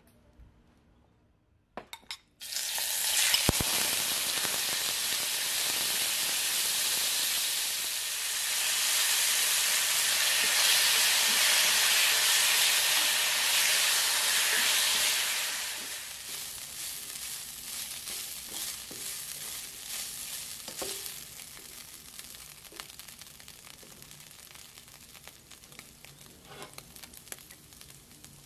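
Thin strips of beef frying in hot canola oil in a nonstick pan. The sizzle starts suddenly about two and a half seconds in and stays loud and steady, then drops to a quieter sizzle about halfway through, with light clicks of a silicone spatula stirring the meat.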